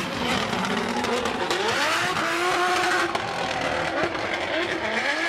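Drift cars sliding sideways: the engines rev hard, their pitch rising and falling again and again, over the hiss of spinning, smoking tyres.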